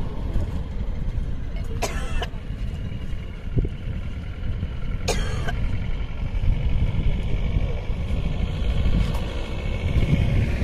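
Low rumble of wind buffeting the microphone, with a person coughing sharply twice, about two seconds in and again about five seconds in.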